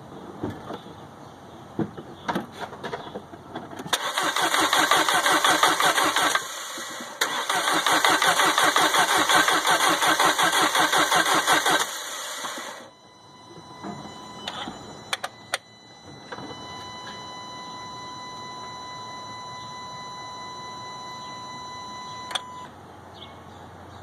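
Audi B7 A4 engine cranking on its starter without firing: two stretches of fast, even cranking, about two and five seconds long, with a brief pause between. It is a crank-no-start after an intake camshaft replacement, with compression and timing reported okay. Later a steady electronic beep tone sounds for about six seconds.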